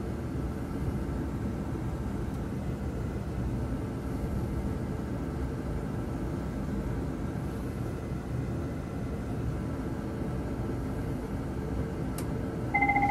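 Steady low rumble of a Boeing 777's engines at takeoff thrust and its wheels rolling down the runway, as reproduced in a flight simulator's cockpit during the takeoff roll. Right at the end, a steady cockpit alarm tone starts: the engine fire warning.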